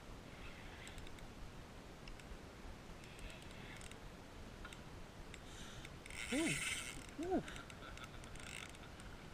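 Spinning reel being cranked in short spells, its gears and pawl clicking faintly as line is wound in against a hooked fish; the strongest spell comes about six seconds in. A man says "ooh" near the end.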